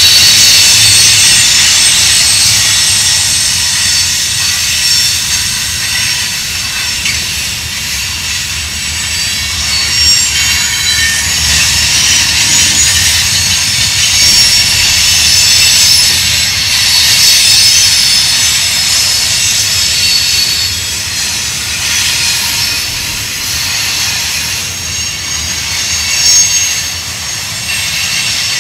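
Freight cars of a mixed freight train rolling past close by. The wheels squeal with several high-pitched steady tones over a low rumble of wheels on rail.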